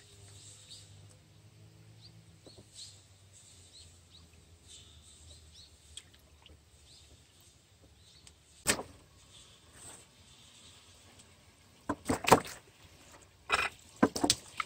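Water in a plastic basin as whole plucked chickens are rubbed and rinsed by hand: faint dribbling and rubbing at first, one loud splash about two-thirds through, then a run of loud, irregular splashes and sloshing near the end as a chicken is lifted from the water.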